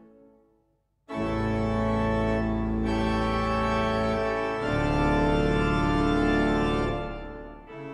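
Hauptwerk virtual pipe organ, sampled from the Walcker organ, playing an improvisation. A phrase dies away to silence, then about a second in loud, bright sustained chords enter, changing twice. They are released shortly before the end with a reverberant die-away, and a quieter passage begins.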